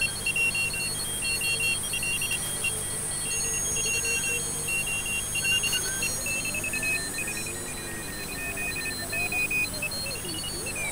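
Morse code (CW) signals beeping on and off at several pitches over steady hiss, heard through a homebrew N1TEV regenerative shortwave receiver. From about halfway, as a front knob is turned, whistles glide in pitch, and near the end one sweeps down and back up.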